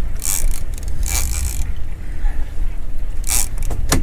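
Big-game fishing reels under heavy load from hooked bluefin tuna: three short hissing bursts of drag, with a sharp click near the end, over a steady low rumble.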